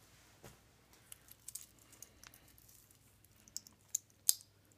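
Seiko SARB033's stainless steel bracelet clinking lightly as the watch is put on the wrist, with a few sharp clicks near the end as the clasp is fastened.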